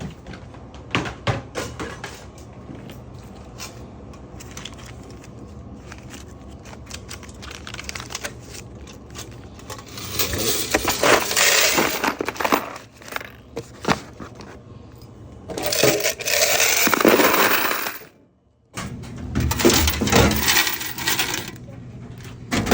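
Coins clinking as change is emptied from a vending machine's coin box: scattered single clinks at first, then several longer spills of jingling coins.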